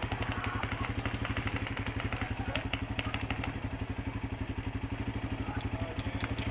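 ATV engine idling with a steady rapid pulse, with a scatter of sharp clicks over the first few seconds.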